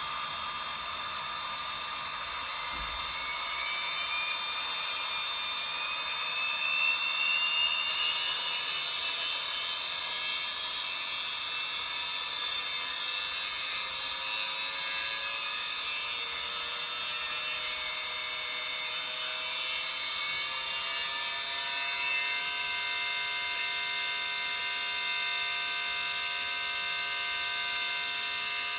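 LG WT5680HVA top-load washer's direct-drive motor whining as it spins the drum up: the pitch rises over several seconds, climbs again, then levels off to a steady high whine as the drum reaches spin speed.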